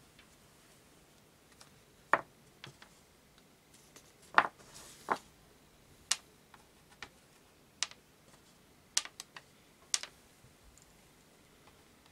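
Sharp plastic clicks and taps from handling multimeter test-lead probes, pulling off their small protective tip caps and setting them down. About eight separate clicks come at irregular intervals, the loudest about two seconds in and about four and a half seconds in.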